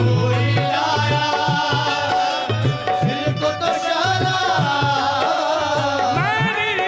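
Devotional qawwali-style music with a steady hand-drum beat under a bending melodic line.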